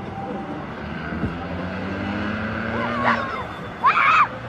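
A car engine running, its note rising slightly. Over it comes a short shout about three seconds in and a louder shout near the end.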